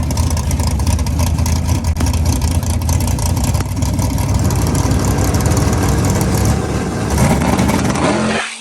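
A drag race car's engine running hard at high revs, loud and sustained.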